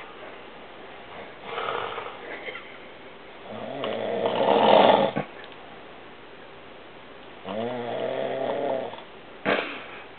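Snoring: a series of snores a couple of seconds apart, the loudest about four to five seconds in. The one about eight seconds in carries a steady pitched tone, and a short sharp one follows just before the end.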